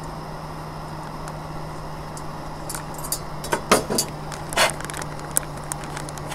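Boiled water being poured from a small stainless steel pot into a paper freeze-dried meal pouch, then several sharp metal clanks as the pot is set down and the pouch crinkling as it is handled, about halfway through. A steady low hum runs underneath.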